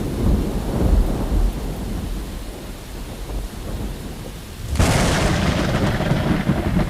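Thunder rumbling and fading away, then a sharp new thunderclap about five seconds in that rolls on before dying down, over a steady hiss of rain.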